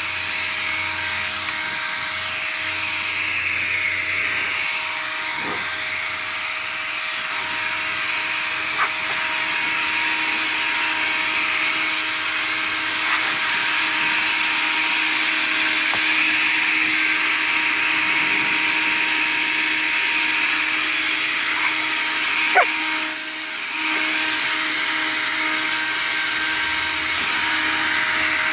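Handheld leaf blower running steadily, a loud rushing whine with steady tones, easing off briefly about three-quarters of the way through.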